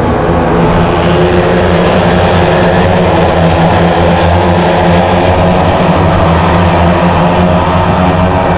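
Engines of several small racing motorcycles running together in a loud, steady drone, their pitch holding nearly level.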